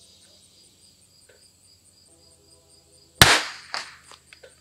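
A single shot from a Christensen Arms Ranger 22 bolt-action .22 LR rifle firing Lapua Xact, about three seconds in after a near-silent pause, followed about half a second later by a fainter sharp sound.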